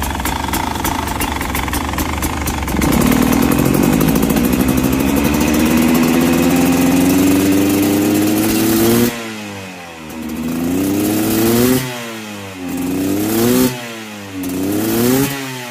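A 2022 Beta 300RR's two-stroke engine idles, then is revved and held high for about six seconds, its pitch slowly climbing. The revs then drop sharply, and it is blipped three times, each rise cutting off suddenly.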